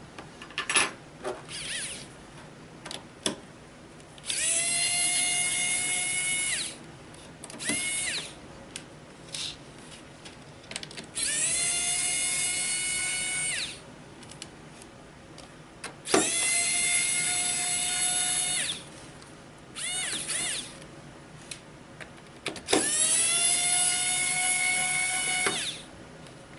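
Electric screwdriver backing out four screws one after another. Each run lasts about two and a half seconds, with a whine that rises as the motor spins up and then holds steady. There are a few short blips of the motor in between.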